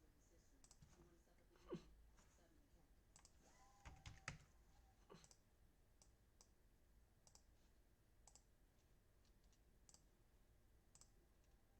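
Near silence: room tone with faint, scattered clicks and a few soft knocks.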